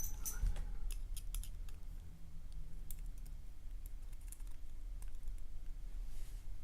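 Light, scattered metallic clicks and ticks of small tools working at the pins and springs in a pin-tumbler lock's chambers, a cluster in the first two seconds, then a few more spread out.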